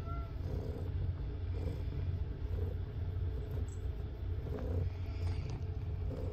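Domestic cat purring steadily while its head is stroked: a low rumble that swells with each breath, about once a second.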